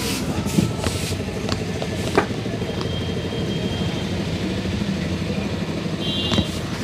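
A motor vehicle engine idling steadily, with a few sharp knocks over it.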